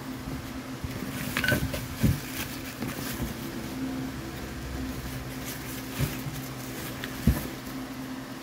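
Plastic packaging rustling and crinkling as hands dig through a cardboard box of dumbbell parts, with a few dull knocks of the pieces bumping inside the box, the sharpest near the end. A steady low hum runs underneath.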